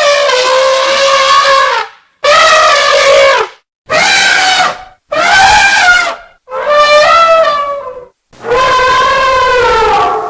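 Elephant trumpeting: a series of six loud, brassy calls, each lasting one to two seconds, with short breaks between them. Some calls bend in pitch and fall away at the end.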